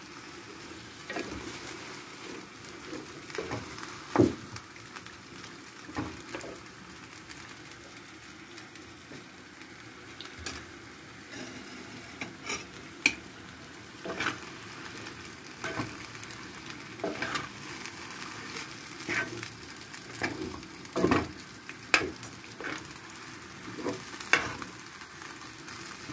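Beef chunks frying with a steady sizzle as they are browned in a pan, while a metal spoon stirs and turns them, knocking and scraping against the pan at irregular moments.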